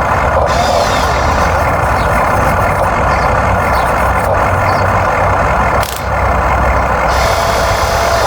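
Steady, loud engine-like machinery noise, with a sharp click and a brief dip a little before six seconds in.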